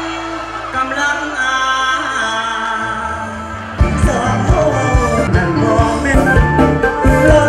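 Live luk thung music with singing, heard over a loud PA. For the first few seconds the band holds sustained notes without drums, then a steady drum beat comes back in about four seconds in.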